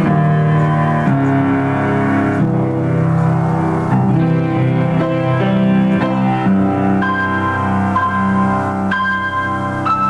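Grand piano played solo in an improvisation: dense, sustained chords low on the keyboard, with single high notes ringing out over them in the second half.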